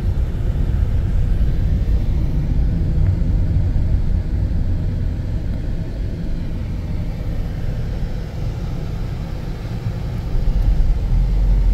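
Steady low rumble of a moving vehicle: engine and road noise, growing a little louder near the end.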